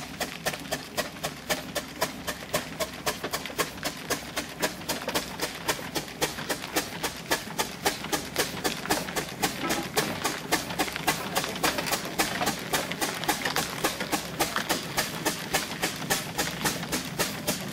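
Steam traction engine running, its engine giving a steady, fast, even beat of sharp knocks over a low hum.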